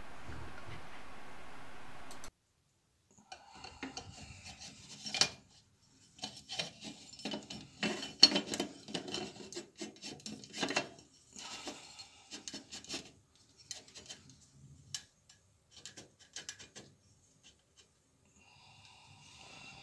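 Cut-glass lamp shade being screwed by hand onto the lamp's threaded holder: glass grating and scraping on the thread in many short, irregular rasps, loudest in the middle and thinning out near the end.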